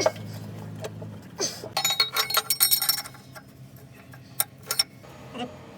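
Loose metal parts clinking and tapping together in a quick flurry of ringing clinks, then a few single clicks, over a faint steady low hum.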